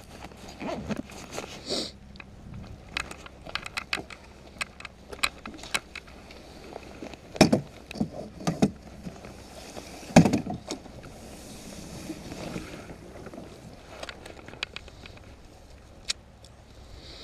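Clicks and knocks of gear being handled on a kayak, with two louder thumps against the hull and a soft swish of water a few seconds later.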